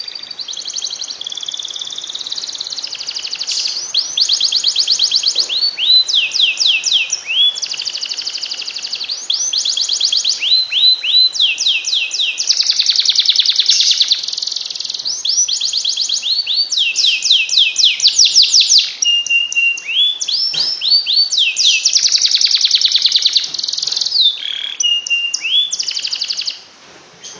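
Canary singing a long, unbroken song of rapid trills: strings of quick repeated sweeping notes, one phrase running straight into the next, the continuous 'ngekek' singing used as a tutor recording for other canaries. The song breaks off near the end.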